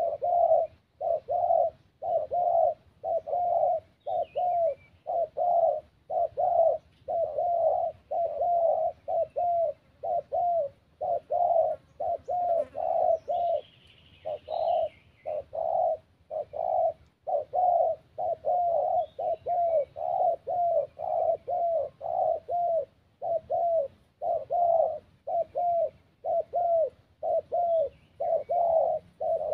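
Spotted doves cooing: low cooing notes repeated in quick runs, one after another, with only short breaks. Faint chirps of other small birds sound now and then above them.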